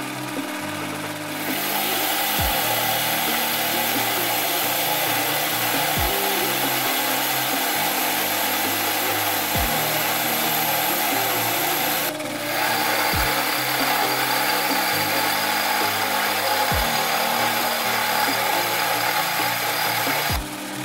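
Metal lathe turning a metal shaft, the cutting tool running across the spinning bar in a loud, steady cutting noise that eases briefly near the start and again about twelve seconds in. Background music with a repeating bass line plays underneath.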